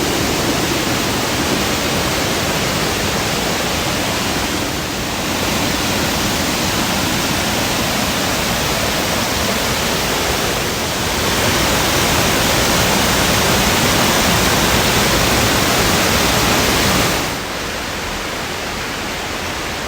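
Waterfall: a loud, steady rush of falling water. Its level shifts a few times and drops about three-quarters of the way through.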